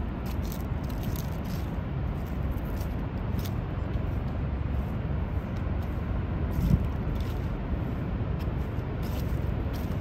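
Steady low roar of the Niagara River's rushing water, with light footsteps about twice a second and a single thump about two-thirds of the way through.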